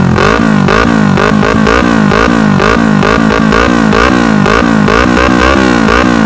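Sport motorcycle engine revved in quick, repeated throttle blips, about two or three a second, with crackling pops from its aftermarket slip-on exhaust, heard close at the muffler outlet.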